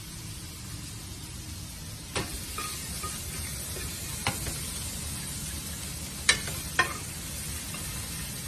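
Cut-up chicken breast sizzling in a frying pan, with four sharp clicks of a utensil against the pan as the pieces are stirred and turned.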